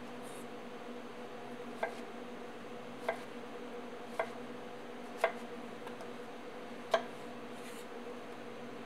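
A chef's knife cuts through a potato and knocks on a wooden cutting board. There are five sharp chops, roughly a second apart, and the last is the loudest.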